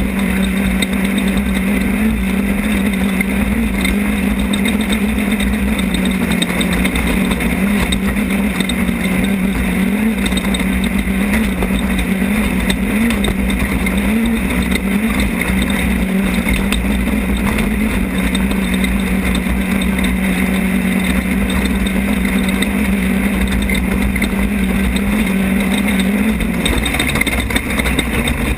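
Off-road race car's engine running hard, heard from a camera mounted on the car, over a loud steady haze of noise. The engine pitch wavers slightly and drops near the end.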